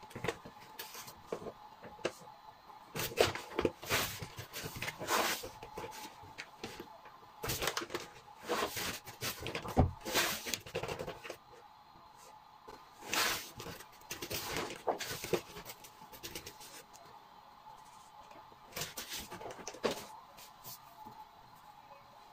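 Flour tipped from a paper bag into a glass mixing bowl, then salt added from a plastic container: irregular rustling, pouring hiss and soft knocks in clusters, with quieter stretches between. A faint steady hum sits underneath.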